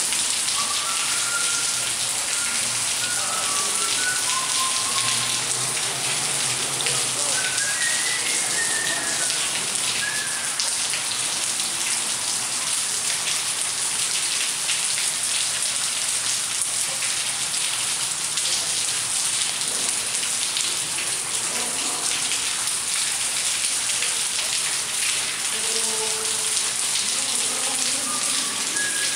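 Rainwater leaking through a subway station ceiling in many streams, pouring and splashing down onto the tracks as a steady, dense hiss of falling water.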